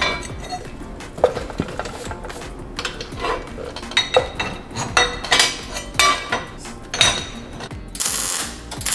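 Steel parts clinking and knocking with short ringing clanks as a truss piece is fitted to a steel axle housing. Near the end, about a second of MIG welder crackle as the piece is tack-welded in.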